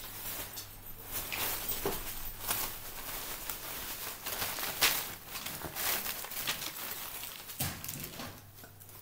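Wrapping paper crinkling and tearing in a string of short rustles as a present is unwrapped by hand, loudest about five seconds in.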